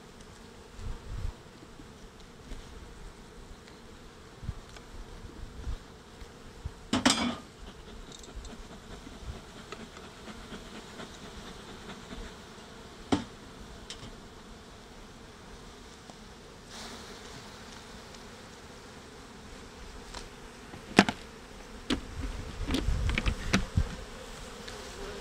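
Honeybees buzzing steadily around an open hive. A few sharp knocks of hive parts being handled cut through it, the loudest about seven and twenty-one seconds in, with a flurry of knocking and rustling near the end.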